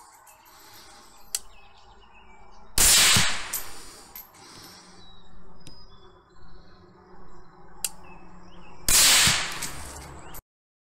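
Two shots from a 6mm ARC rifle about six seconds apart, each a sharp report with a short echo after it, and faint small clicks between them.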